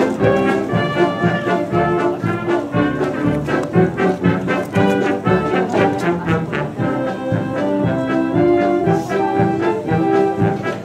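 A fire department band playing live, with brass instruments such as trombones and trumpets leading.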